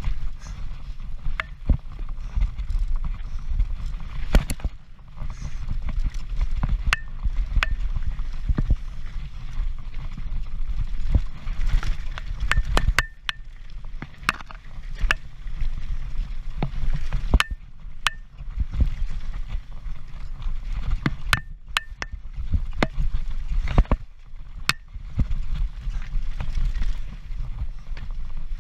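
Transition Patrol mountain bike descending rough ground at race speed: a steady low rumble of wind and vibration, with sharp clacks and knocks from the bike and chain scattered irregularly throughout, some with a short metallic ping.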